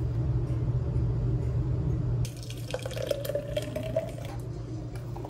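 Thick berry smoothie being poured from a plastic blender jar into a glass mason jar, filling it from about halfway through. Before the pour, a steady low hum.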